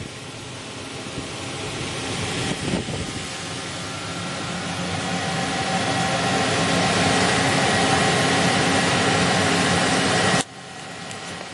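Emco Turn 220 CNC lathe running, a steady machine noise with faint whining tones that grows louder over several seconds, then drops off suddenly near the end.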